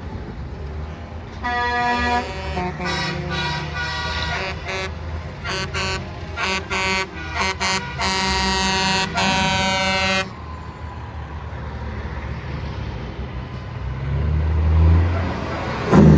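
Semi-truck air horn sounding several notes at once: a longer blast, a run of short toots, then a long blast that cuts off sharply about ten seconds in. Truck engines run underneath, growing louder near the end as a truck passes close.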